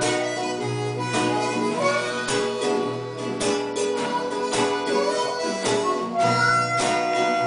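Instrumental stretch of a blues jam in C: strummed acoustic guitar with a harmonica playing sustained, bending notes over it.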